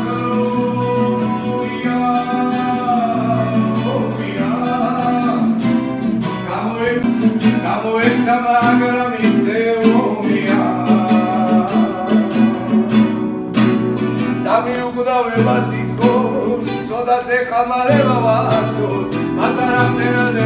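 An acoustic guitar is played with a voice singing a melody over it.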